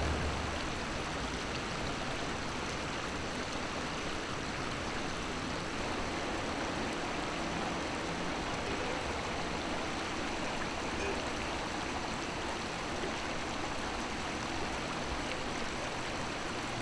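Shallow river running: a steady, even rush of flowing water.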